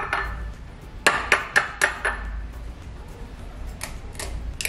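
An egg tapped four times in quick succession against the rim of a small ceramic bowl to crack its shell, followed near the end by a few fainter cracks as the shell is pulled open.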